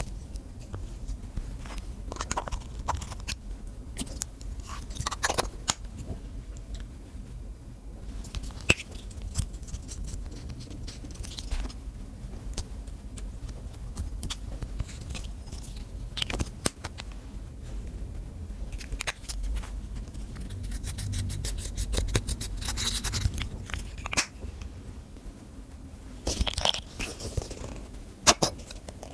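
Close-up handling of makeup on a glass plate: sharp clicks and taps of lipstick cases, with scraping and crunching as lipsticks are cut and pressed eyeshadow is crushed. A quick run of ticking scrapes comes about two-thirds of the way through.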